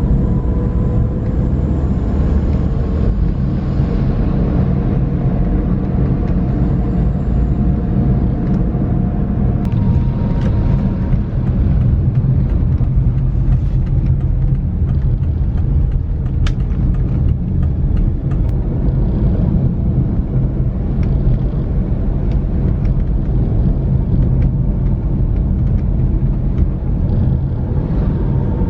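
Inside a moving car's cabin: a steady low rumble of tyres on the road and the engine running, with a faint steady engine tone and a few scattered light ticks.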